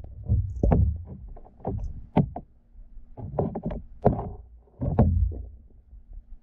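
Muffled knocks and low thumps heard through a camera submerged in a plastic wading pool, half a dozen or so at uneven intervals over a low rumble.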